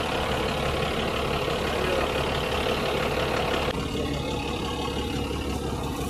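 Fire tanker truck's engine running steadily, with a hiss over it that lessens a little under four seconds in.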